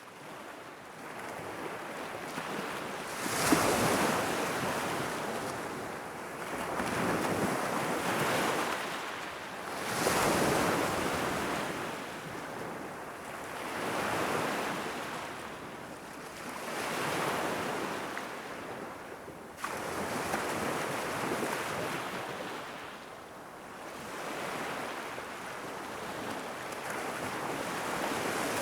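Gentle Irish Sea waves lapping against a rocky shore, each wash swelling and falling back about every three to four seconds.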